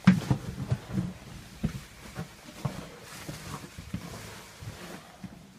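Footsteps on a wooden floor with rustling and knocking from handling a phone while walking: irregular soft thumps, the loudest right at the start, with a brief hiss of rustling about three seconds in.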